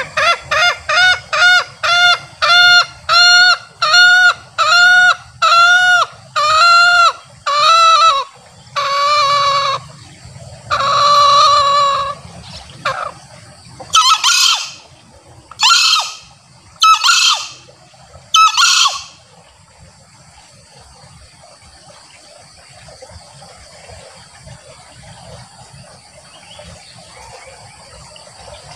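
Male green junglefowl calling: a long run of quick, evenly spaced cackling notes (ngekek) that slow and lengthen over the first ten seconds, then four short, sharp high calls. From about two-thirds of the way in only a faint steady hiss remains.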